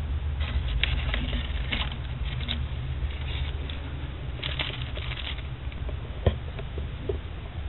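Handling noise: two spells of crinkling, crackly rustle and a single sharp knock about six seconds in, over a steady low hum.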